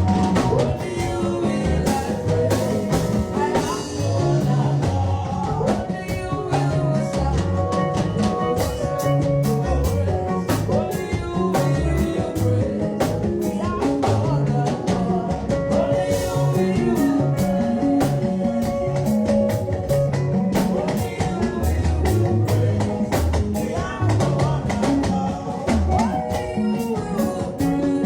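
A live band playing a song, with a drum kit keeping a steady beat under low moving notes and held higher instrument lines.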